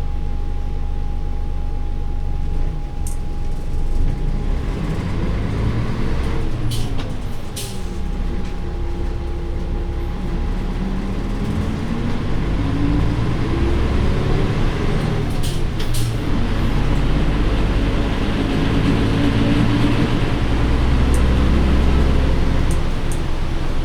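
Nissan Diesel Space Runner bus's PF6HT turbocharged six-cylinder diesel engine idling, then pulling away, its pitch climbing and dropping back several times as the manual gearbox shifts up. A few short sharp clicks sound along the way.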